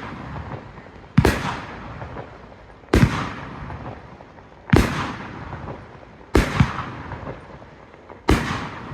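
Aerial firework shells bursting one after another, about one loud bang every second and a half to two seconds, each fading away in a tail of noise; two bangs come close together about two-thirds of the way through.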